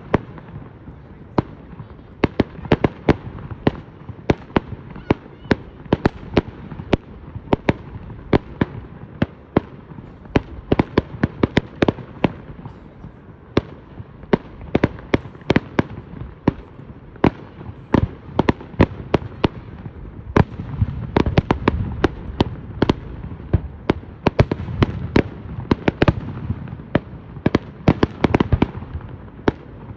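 Fireworks going off: a dense, irregular run of sharp bangs and cracks, several a second, over a continuous rumble that grows heavier in the last third.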